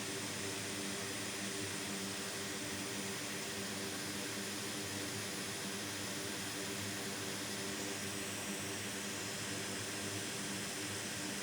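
Hot air rework station blowing a steady hiss of hot air onto a board connector to melt its solder, with a faint steady hum underneath.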